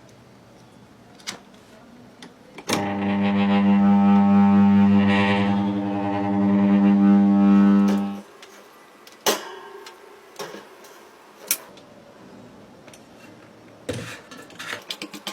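Electric desk fan motor humming loudly on mains power for about five seconds, a steady unchanging hum, then cutting off abruptly; a few clicks and knocks follow.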